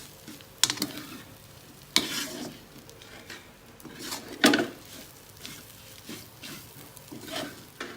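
Spatula stirring and scraping shredded tuna around a frying pan in a few separate strokes, the loudest about halfway, over a faint sizzle: the fish floss being dry-fried until it browns.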